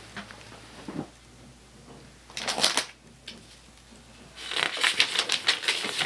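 Paper rustling: a short rustle of playing cards being handled, then comic-book pages flipped and flapping, a dense crackly rustle from about four and a half seconds in.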